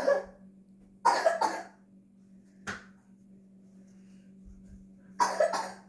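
A person coughing in short fits: one cough at the start, a double cough about a second in, a single short one near three seconds, and another double cough near the end, over a steady low hum.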